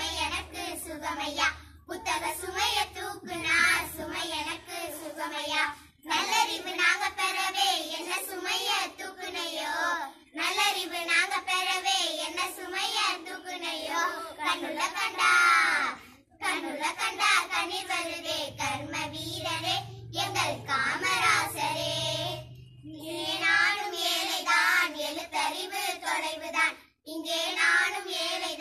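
A small group of girls singing a song together in sung phrases a few seconds long, each followed by a short pause for breath.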